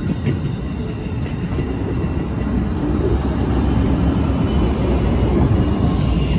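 Amtrak passenger train passing close by: steel wheels rumbling over the rail as the coaches go past, followed near the end by the Siemens Charger SC-44 diesel-electric locomotive at the end of the train.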